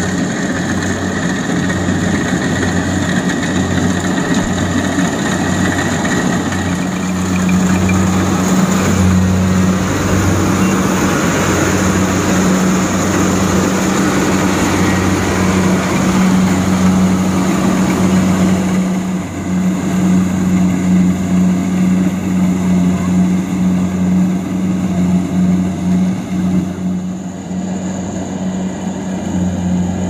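Kubota DC-70 rice combine harvester working in the field: its diesel engine hums steadily under load while the cutter and threshing drum make a continuous rushing noise. The sound turns more uneven and pulsing about two-thirds of the way through.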